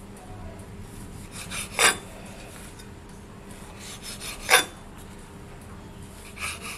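Kitchen knife cutting the crusts off a slice of white bread on a wooden chopping board, in two short strokes a couple of seconds apart.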